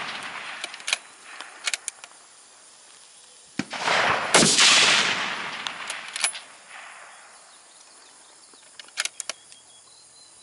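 A precision rifle fires once about four seconds in, the report echoing away over a second or more. A few short sharp clicks come before and after it.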